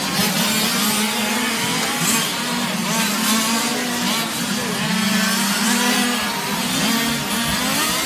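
Several 1/5-scale RC GT race cars' small two-stroke petrol engines buzzing together, their overlapping pitches rising and falling as the cars accelerate and slow through the corners.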